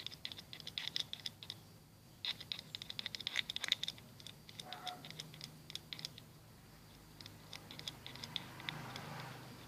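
Spoon stirring slime in a bowl: irregular runs of light clicks and scrapes, in three bouts with pauses between them.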